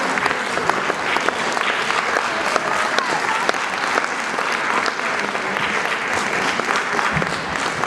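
Concert audience applauding: a dense, steady clapping from many hands.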